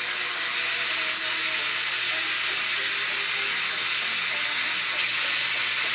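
A 1930s diathermy machine's high-frequency discharge sparking from a pair of knives makes a steady, loud hiss, which grows a little louder about five seconds in.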